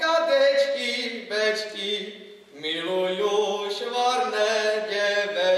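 A boy's solo voice singing a Moravian folk song in long held notes, with a short break between two phrases about two and a half seconds in.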